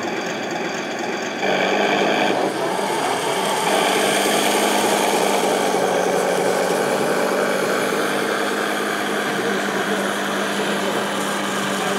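Large-scale radio-controlled model KV-1 tank driving: a steady mechanical drone from its drive and tracks that steps up in level about a second and a half in.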